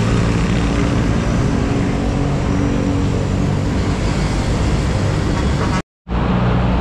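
Steady road traffic heard from a moving bicycle: a nearby vehicle's engine drones low under a constant rush of traffic and road noise. The sound drops out for a moment at an edit near the end.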